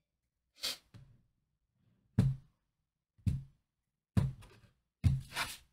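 A stack of tarot cards knocked down onto a table five times, about a second apart, each a short thunk followed by a faint rustle of cards.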